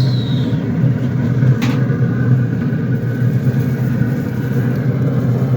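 A steady low rumble, with a single sharp click about a second and a half in.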